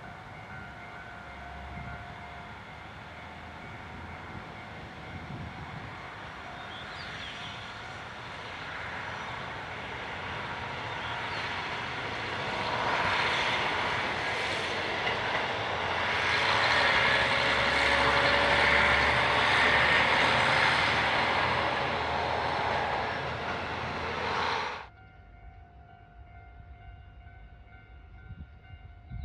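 KiHa 40 diesel railcar running past, its engine and wheels on the rails growing louder to a peak, then cutting off suddenly near the end. A faint steady hum of a few fixed tones lies underneath.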